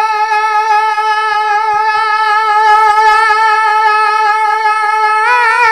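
A voice holding one long sung note of a naat with a slight vibrato, breaking into a wavering ornament near the end.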